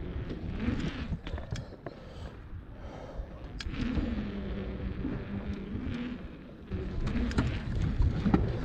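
Mountain bike's knobby tyres rolling over a concrete skatepark bowl: a humming buzz that rises and falls in pitch as the speed changes through the transitions, over a low rumble. Short knocks and clicks from the bike are scattered through it.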